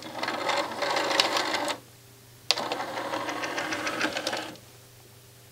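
Sony DHC-MD373's CD mechanism running in two buzzing, clicking bursts of about two seconds each, with a short pause between them and quiet after about four and a half seconds. The disc doesn't spin and the player reads 'no disk', a fault that the replacement laser pickup has not cured.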